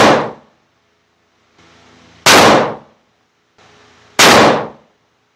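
Three rifle shots about two seconds apart from a Mossberg Patriot chambered in 7mm PRC, each a sharp, loud report with a short ringing tail. The first shot falls right at the start.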